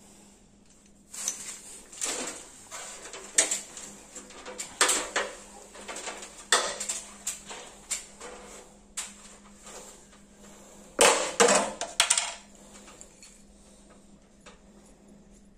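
Irregular metallic clinks, taps and scrapes as a fitting is worked by hand into a hole drilled in a wall, with a louder burst of knocks about eleven seconds in.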